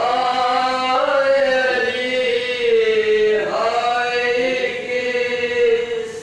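Male voices chanting a noha, a Shia mourning lament, in long drawn-out notes that slide in pitch.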